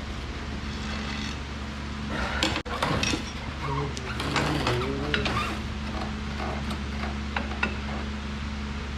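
Scattered light metallic clinks and scrapes as a pry bar is worked around a car's rear strut and hub, over a steady low hum.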